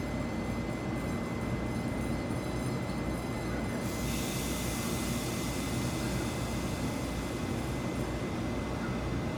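TEMU1000 tilting electric multiple unit moving slowly along the platform as it pulls out, a steady low rumble with a thin steady high tone over it. About four seconds in, a hiss joins it.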